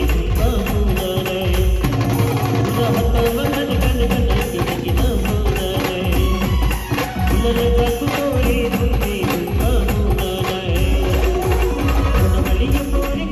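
Loud amplified band music from a truck-mounted band stage: electronic keyboards carry a folk-style melody over heavy bass and a steady percussion beat.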